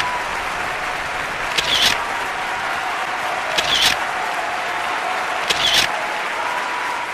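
Audience applauding steadily, with brief louder swells about every two seconds.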